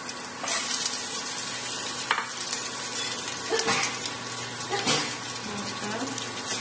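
Pre-fried chicken pieces sizzling in hot oil with garlic and ginger in a frying pan, with a louder surge of sizzling about half a second in as the chicken goes in. Several sharp scrapes and knocks against the pan follow as it is stirred, the loudest about five seconds in.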